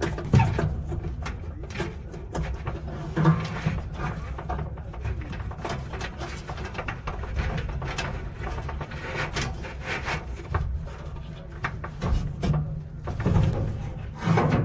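Irregular clicks, knocks and a few louder thumps from handling a clothes dryer's parts while its drive belt is being fitted.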